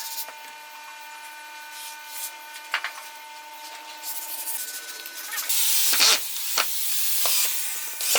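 Rubbing and rasping on wood in a workshop: a few light knocks at first, then a loud, harsh rub from about halfway through that stops abruptly at the end.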